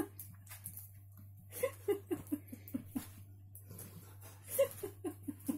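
A woman laughing in two bouts of short, quick bursts, the second about four and a half seconds in.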